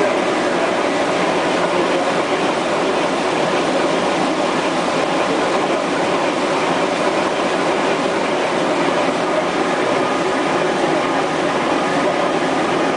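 Water mill's millstones turning and grinding grain, with grain trickling in from the wooden hopper: a loud, steady rumbling clatter.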